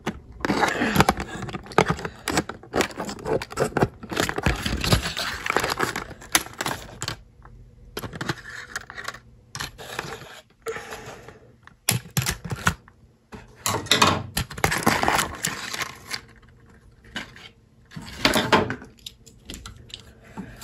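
Hands working a plastic action figure free of its packaging: irregular clicking, rattling and rustling from the plastic tray, wire ties and the toy's jointed parts, in quick clusters with short pauses.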